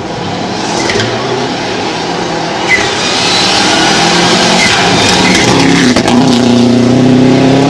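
Subaru Impreza rally car's turbocharged flat-four engine at full throttle on loose gravel, growing louder as the car approaches and passes close by, its note climbing in the second half, with stones spraying from the tyres.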